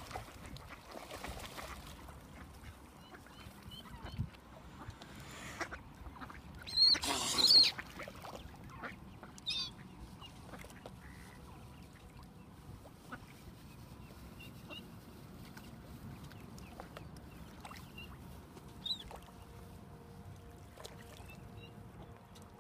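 Mallards and mute swans calling at the water's edge, with a loud harsh call about seven seconds in and a shorter one near ten seconds, among scattered faint high calls.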